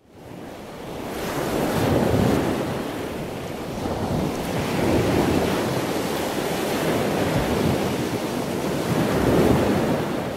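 Ocean surf sound bed: a steady wash of breaking waves that swells and ebbs, fading in from silence over the first couple of seconds.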